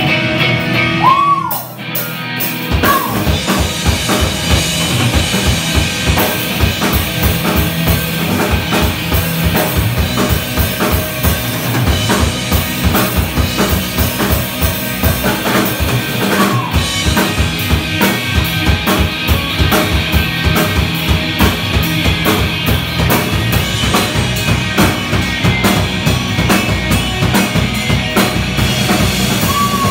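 Live rock band playing: electric guitars, bass guitar and a drum kit keeping a fast, steady beat. The band drops out briefly about two seconds in, then comes back in full.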